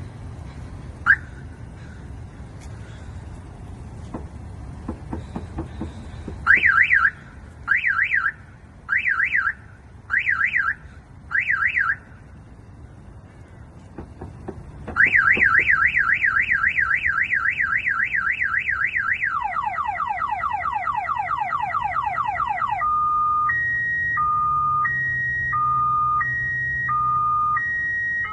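Newly installed aftermarket car alarm siren on a Hyundai Elantra stepping through its tone patterns. A short chirp comes about a second in, then five short warbling bursts, then a long fast warble, a rapid repeated falling sweep, and a high-low two-tone near the end.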